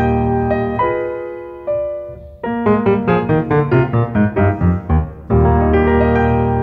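Solo Steinway concert grand piano playing: a held chord fades away, then a quick run of single notes begins about two seconds in, and a loud chord with deep bass comes in near the end.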